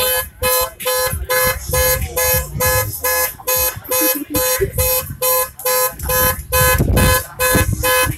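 A loud electronic tone beeping in a fast, even rhythm, about two and a half beeps a second, over a low rumble.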